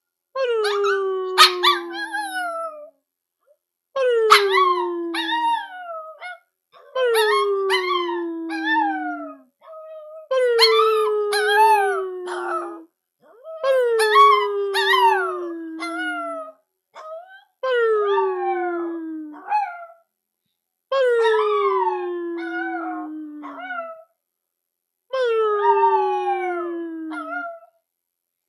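Pomeranian howling: about eight drawn-out howls, each two to three seconds long and sliding down in pitch, with short pauses between.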